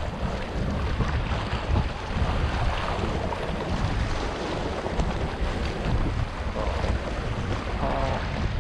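Wind buffeting the microphone in gusts, over sea waves washing and splashing against the rocks of a breakwater.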